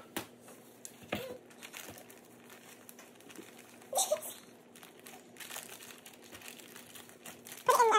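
Plastic zip-top bag and paper towel crinkling and rustling as they are handled, with scattered light taps and a short louder rustle about four seconds in.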